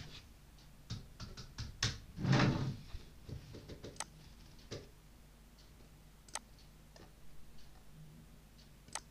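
Computer keyboard typing a short word, a quick run of key clicks about a second in, followed by a brief louder rush of noise. Then single sharp clicks a couple of seconds apart, likely from a computer mouse.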